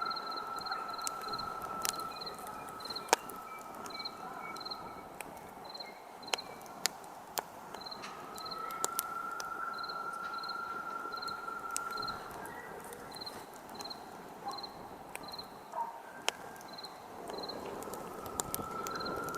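Campfire crackling with scattered sharp pops, one loud snap about three seconds in, over crickets chirping in an even pulse and a steady insect trill that drops out for a few seconds at a time.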